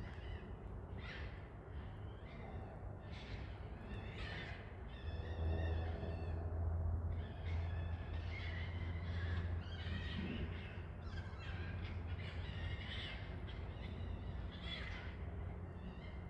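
Unseen animals fighting, giving repeated harsh, pitched cries, roughly one every second or so, some short and some drawn out. The animals are not identified; they sound like cats or something similar.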